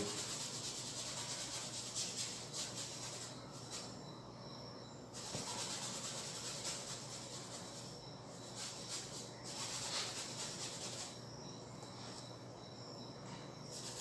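Paintbrush scrubbing paint onto a stretched canvas in scratchy strokes, with two short pauses.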